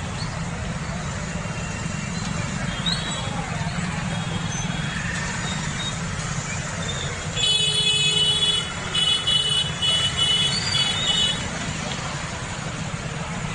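Street traffic of motorcycles and cars with a steady low engine hum. About halfway through, a vehicle horn honks in several blasts over about four seconds.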